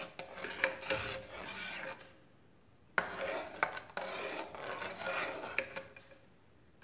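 Metal ladle stirring soup round in an aluminium pot, scraping against the pot in two spells with a few sharp knocks and a pause of about a second between them. It is the one-way stirring done while beaten egg white is poured into the soup.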